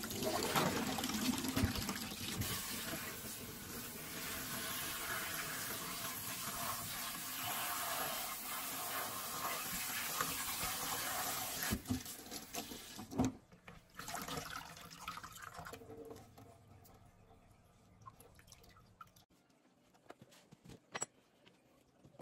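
Tap water running into a sink while a handful of fresh cudweed greens is rinsed. About two-thirds of the way through the water stops after a few knocks, leaving faint handling sounds and occasional clicks.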